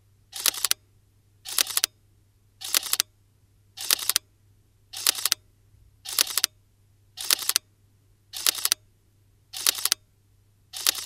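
Sony Alpha 7R mirrorless camera's shutter firing in single-shot mode, ten releases about once a second, each a short double click.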